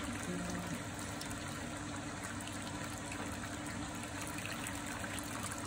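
Recirculating wort trickling steadily from the holes of a copper sparge ring and splashing back onto the surface of the mash.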